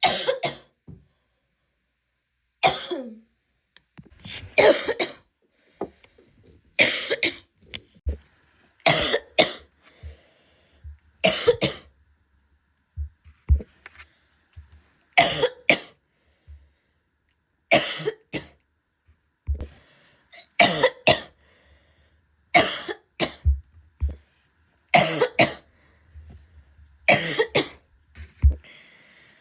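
A woman coughing with a harsh, barking cough, over and over: mostly two coughs in quick succession, about every two seconds, with short gaps between the bouts.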